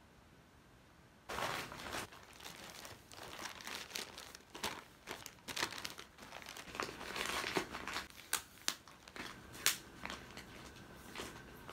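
White plastic mailer bag crinkling and rustling as it is handled and opened, with scattered sharp crackles, starting about a second in.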